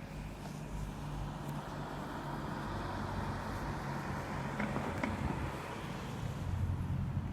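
A road vehicle's engine running steadily, a low hum under traffic noise, getting a little louder near the end.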